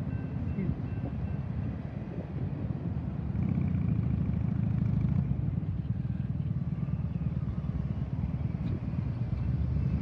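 Road traffic: cars and SUVs idling and pulling away across a railroad grade crossing as the gates lift, a steady low rumble that grows a little louder a few seconds in.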